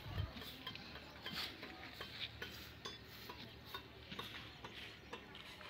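Faint outdoor village ambience: scattered short chirps, ticks and clicks with no single clear source.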